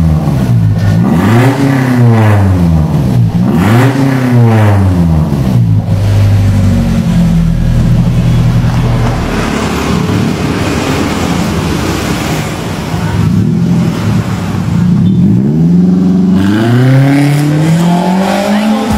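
Daihatsu Gran Max van's engine heard through an aftermarket NDK DK-03 v3 muffler, with the stock header and resonator, showing off the new exhaust note. The engine is revved up and let fall back three times in quick succession, then runs steadily with a rougher note, and revs climb again near the end.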